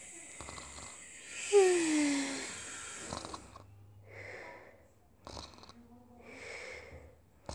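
A child's voice imitating sleepy snoring: a falling, voiced sigh about a second and a half in, then slow, breathy snores about every two seconds, with a short click near the middle.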